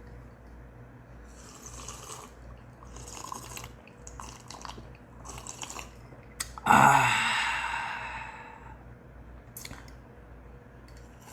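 A person taking several loud slurping sips of a drink, then a long, satisfied voiced 'ahh' exhale about seven seconds in, falling in pitch.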